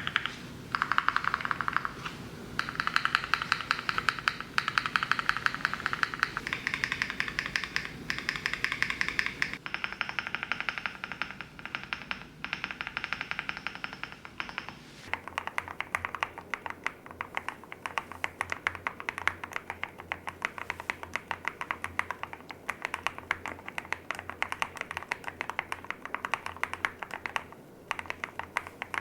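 Typing on a Swagkey Transition LITE custom mechanical keyboard with Haimu RAW switches: a fast, continuous run of keystroke clacks. About 15 seconds in, the clacks turn duller.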